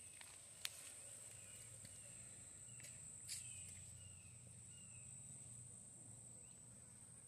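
Faint outdoor ambience: a steady high-pitched insect drone, with short falling chirps from a bird repeating every second or so and a couple of brief clicks.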